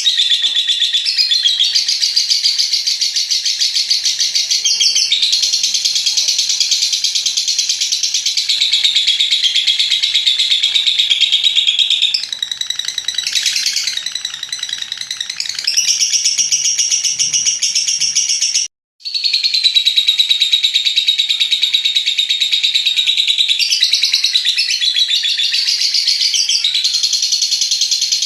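Lovebird in a long 'ngekek' chatter: a high, very rapid run of repeated notes held for many seconds without pause. It turns weaker and more broken for a few seconds past the middle, then cuts out sharply for an instant before resuming.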